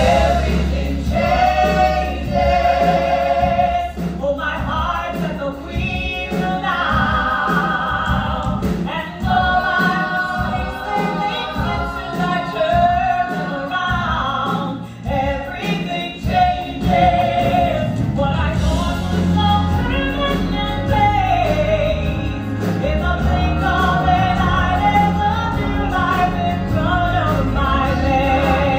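Stage-musical number: several voices singing together like a choir over a band, with long held notes sung with vibrato over a steady bass line.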